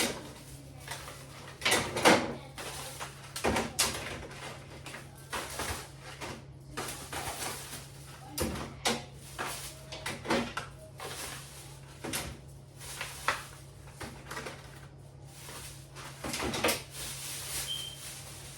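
Groceries being put away in a refrigerator: irregular knocks, clicks and rustles as packages are handled and set on shelves and drawers, over a steady low hum.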